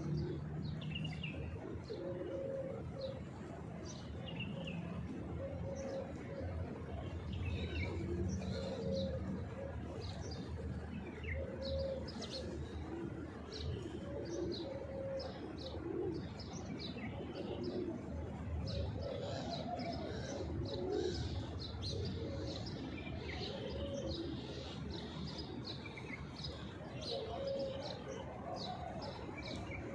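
Pigeons cooing in short, low, repeated phrases, with many quick high-pitched bird chirps going on over them.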